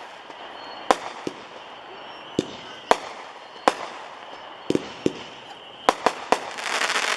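A 200-gram, 19-shot aerial repeater cake (Winda's Killer Cake) firing: about a dozen sharp shot reports at irregular intervals, some in quick pairs. Near the end there is a brief dense rush of noise.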